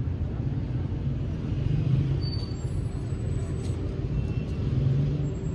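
Cat purring steadily close to the microphone while it is stroked on the head, the purr swelling about two seconds in and again near the end.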